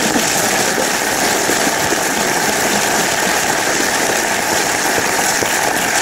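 Studio audience applauding with laughter, a steady dense clapping that holds at one level throughout.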